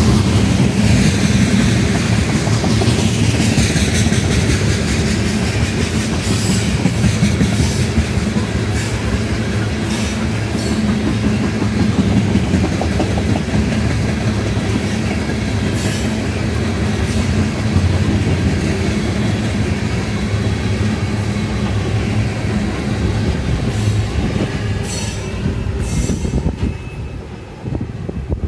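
Tank cars of a long freight train rolling past close by: a steady rumble of wheels on rail with clickety-clack over the rail joints and some wheel squeal. The sound drops away near the end as the last cars go by.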